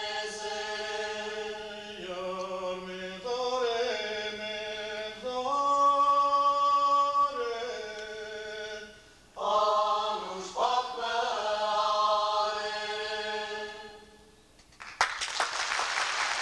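Voices singing a traditional Armenian folk song unaccompanied, in long held notes with a few short breaths between phrases; the song fades out about fourteen seconds in. Audience applause breaks out near the end.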